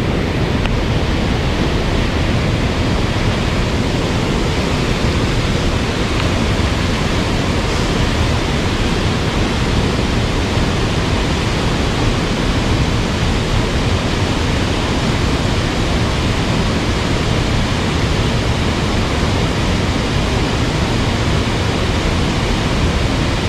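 Steady rushing of a mountain stream running high with water, an even, unbroken wash of noise.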